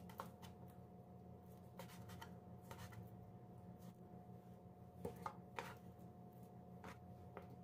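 Faint, irregular taps of a chef's knife on a plastic cutting board as raw chicken breast is sliced, a little louder about five seconds in, over a faint steady hum.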